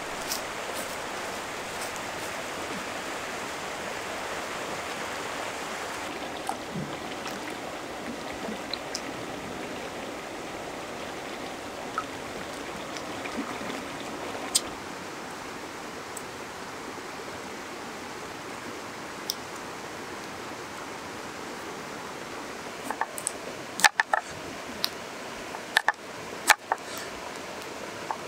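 River water flowing steadily over its shallow, stony bed. Near the end, a cleaver chopping a peeled potato on a wooden cutting board: a quick run of sharp knocks.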